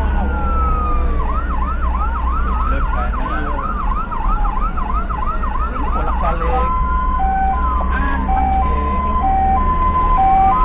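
Ambulance electronic siren on the moving vehicle, over a steady low engine and road rumble. It switches from a slow wail to a fast yelp about a second in, and then, past the middle, to an alternating high–low two-tone.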